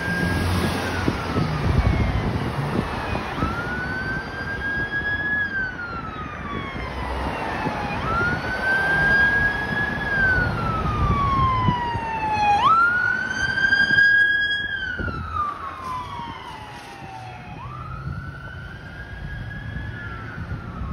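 Fire engine siren on a slow wail, rising quickly, holding and sliding back down about every four to five seconds, over the rumble of passing car traffic.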